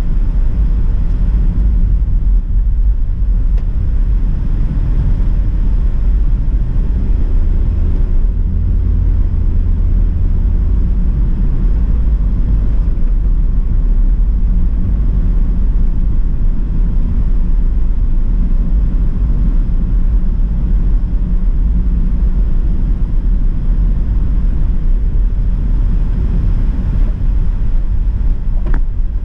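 A car being driven, heard from inside: a steady low rumble of road and engine noise.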